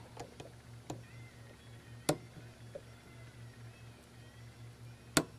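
Sharp clicks and taps of a precision screwdriver working tiny screws out of a small circuit-board arm, the two loudest about two seconds in and near the end, over a faint low steady hum.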